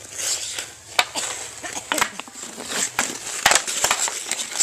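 Ice skate blades scraping and carving over rough natural ice, with sharp clacks of hockey sticks striking the ice and puck, roughly once a second and a pair near the end.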